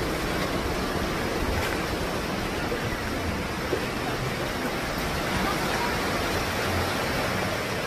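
Wind blowing across the microphone: a steady rushing hiss with uneven low rumbling.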